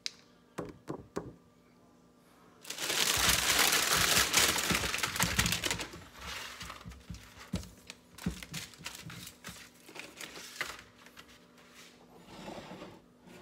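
Meal-kit packaging crinkling loudly for a few seconds as ingredients are unpacked, then scattered knocks and taps as produce and packets are set down on a plastic cutting board. A few sharp clicks come in the first second or so.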